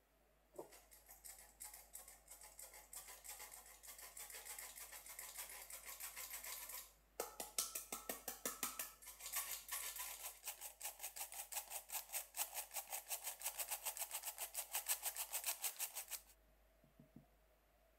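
Hand-operated stainless-steel flour sifter being worked over a glass bowl, its mesh mechanism rasping and clicking rapidly, several strokes a second, in two long runs with a brief pause about seven seconds in.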